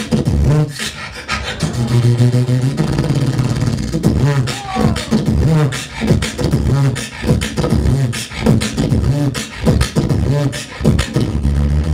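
Solo beatboxing into a handheld microphone through a PA: a fast run of sharp vocal percussion hits and clicks over low held bass tones, with a short sliding tone about four and a half seconds in.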